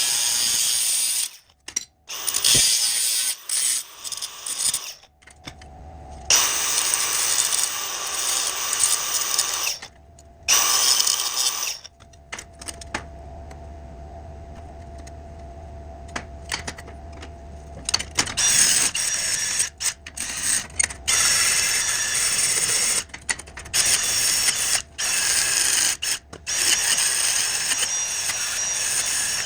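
Metalworking tool noise in short clips joined with abrupt cuts: power-tool and hand-tool work on steel window frame parts.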